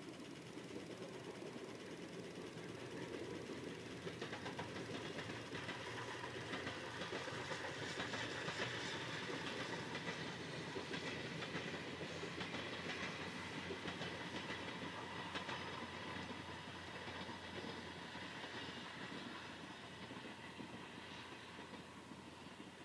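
Steam-hauled passenger train of 12-series coaches behind the C57 180 rolling past, the wheels clicking over the rail joints in a continuous clatter. The sound swells to its loudest about a third of the way in, then slowly fades as the last coaches draw away.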